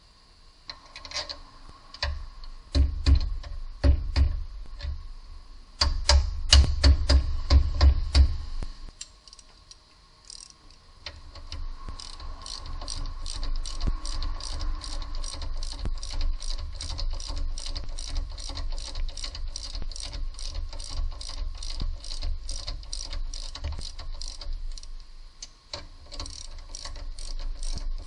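Hand ratchet wrench clicking as a bolt under the car is turned. Irregular heavier knocks and clicks come first; after a short lull, about a third of the way in, a steady run of clicks follows, a few a second.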